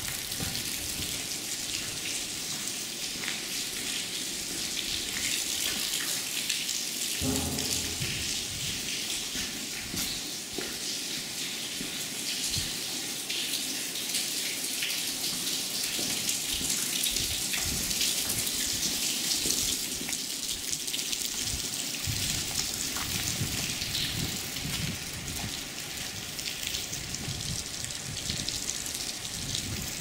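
Steady patter of dripping water, like light rain falling on hard ground.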